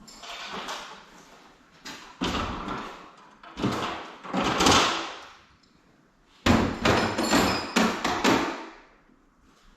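Garage door torsion-spring hardware being worked along its shaft: metal scraping and sliding in long swells, then a quick series of sharp knocks, as the broken spring is forced off the end of the shaft.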